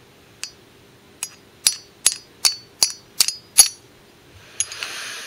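Small hammer tapping the extractor pin into an AR-15 bolt: about eight sharp metallic taps with a bright ring, mostly getting louder, driving the pin home to hold the new extractor. A short rustle of handling follows near the end.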